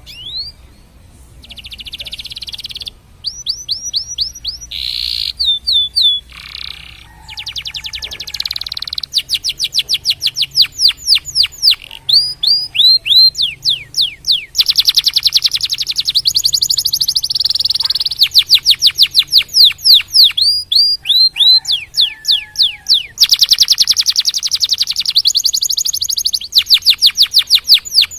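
Domestic canary singing a long song of rapid trills and runs of repeated down-slurred whistled notes, with a few lower notes and short pauses between phrases.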